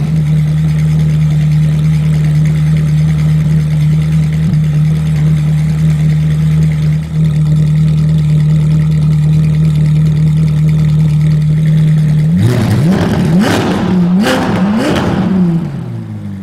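Ferrari 458 Italia's naturally aspirated V8 idling steadily through an aftermarket Fi Exhaust, then revved in three quick throttle blips about twelve seconds in before settling back to idle.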